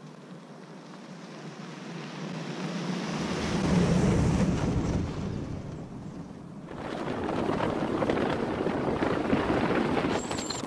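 A Toyota 4Runner drives up a dirt road and passes close by. Tyre and engine noise builds to its loudest about four seconds in, then fades. After a sudden cut about two-thirds of the way through comes steady wind and road noise from a vehicle travelling on a gravel road.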